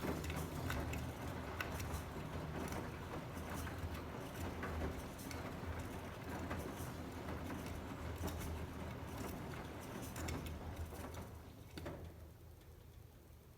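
Beko washing machine tumbling a load of towels: a low motor hum with water sloshing and many small knocks and patters from the turning drum. It dies away about twelve seconds in as the drum stops between turns.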